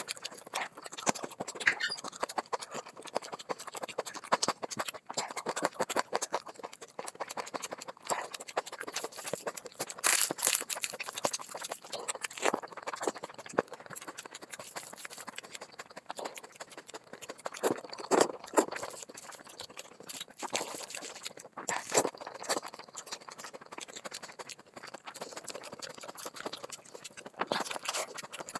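Close-miked eating sounds: a person chewing curried chicken and rice with mouth clicks and smacks, and hands squeezing and mixing rice and curry, giving a run of irregular crackly clicks. Near the end, tearing of chicken.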